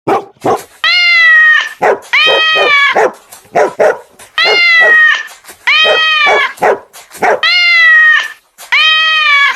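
A kitten mewing: six long, high, slightly falling mews, with short sharp calls between them in a regular repeating pattern.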